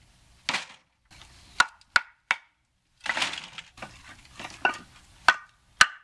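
Dry split firewood clacking as pieces are handled and knocked together, about five sharp, ringing wooden knocks with rustling and scraping of logs between them. The clear ringing knock is the "nice dry sound" of well-seasoned firewood.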